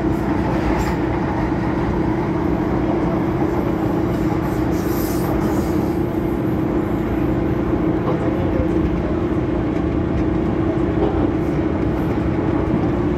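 MTR M-Train electric multiple unit running at speed, heard inside the carriage: a continuous rolling rumble of wheels on rail with a steady hum. A brief high hiss comes about five seconds in.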